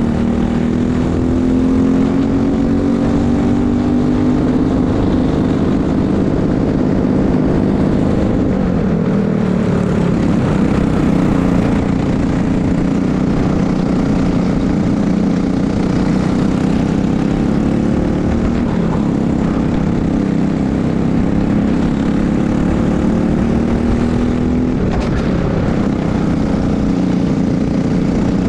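Briggs & Stratton LO206 single-cylinder four-stroke kart engine running hard at race pace, heard on board. Its pitch climbs steadily and then drops sharply about 9 s, 19 s and 25 s in, falling as the kart slows for corners and rising again on the straights.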